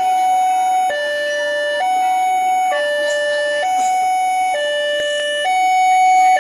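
Railway level-crossing warning alarm sounding a steady two-tone signal, switching between a higher and a lower tone about once a second, with the noise of a passing train underneath. It signals that a train is occupying the crossing.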